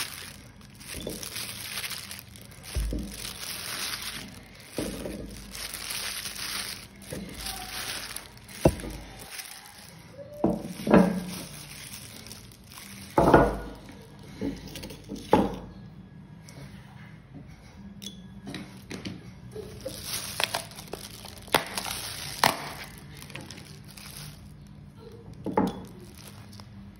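Irregular knocks and clatter of firm green mango slices and a ceramic plate against a clay pot as food is tipped into it, with a few louder knocks in the middle and lighter scattered taps toward the end.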